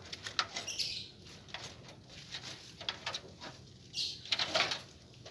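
Wire-mesh rabbit hutch door being handled and pulled open: a series of short rattles and clicks from the metal frame and mesh, bunched about half a second in and again around four seconds in.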